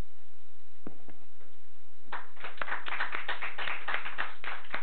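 An audience clapping, starting about two seconds in and thinning out near the end, after a single knock about a second in.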